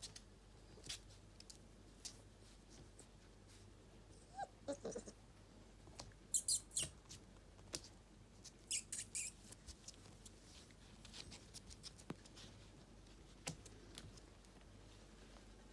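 A litter of puppies squeaking faintly, with a short whine about four and a half seconds in and clusters of short high squeaks around the middle, among small clicks and rustles.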